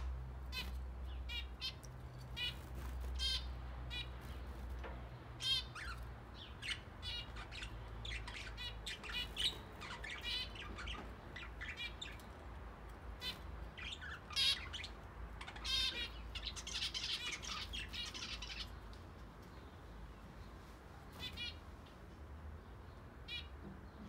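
Mixed aviary flock of budgerigars and zebra finches calling: a steady stream of short chirps and calls, with a denser burst of chatter about two-thirds of the way through.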